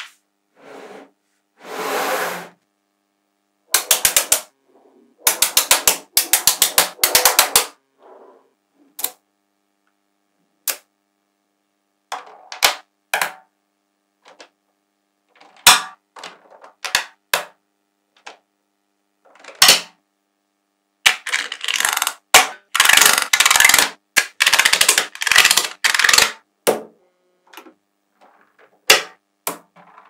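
Small magnetic balls clicking and snapping against each other as strands and slabs of them are handled and pressed into place. There are single sharp clicks, quick runs of many clicks a few seconds in, and a longer stretch of dense rattling clicks past the middle.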